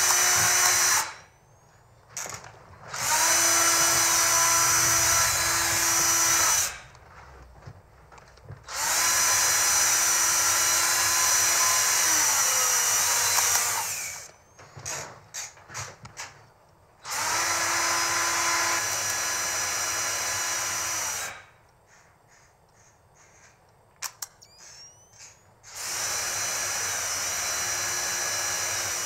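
Battery-powered cordless drill running in five bursts of a few seconds each at a steady pitch, one winding down as the trigger is eased off, with short clicks in the gaps between runs.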